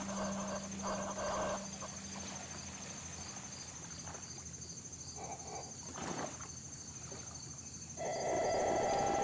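Battery-powered electronic synthesizer being played in free improvisation: short tones in the first second and a half, near-quiet gaps, then a sustained drone that comes in about eight seconds in. A steady high-pitched trill runs underneath.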